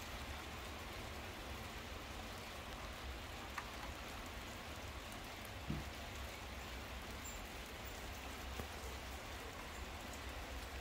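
Steady rain falling in a thunderstorm downpour, an even hiss, with a couple of single faint taps a few seconds in.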